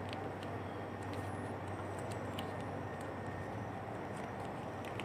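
Steady low background rumble with a constant hum, and a few faint, short clicks from hands tying a rubber inner-tube strip around a PVC pipe.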